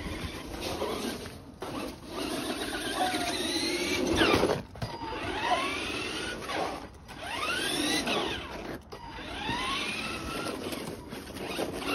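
Small electric motors of radio-controlled cars whining, the pitch sweeping up and down again and again as the cars speed up and slow down.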